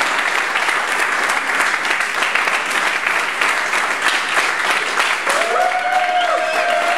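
Audience applauding steadily, with a few voices cheering near the end.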